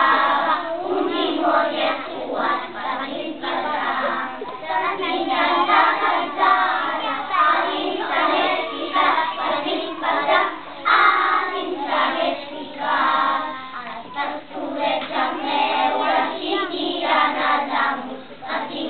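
A group of young children singing a song together, the choir's loudness rising and falling with the phrases.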